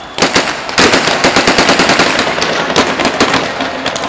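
Rapid gunfire: a few single shots, then from about a second in a dense run of shots in quick succession that thins near the end.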